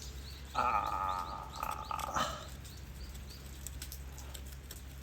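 An animal call, one wavering cry lasting about a second and a half, over a steady low hum.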